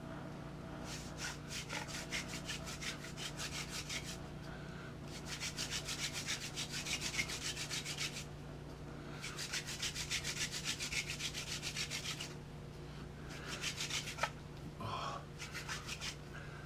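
Hand-drill fire-making: a wooden spindle spun back and forth between the palms, grinding into a wooden hearth board. It makes a rapid, even rasping in three runs of about three seconds each, then two shorter runs near the end, with short pauses between them.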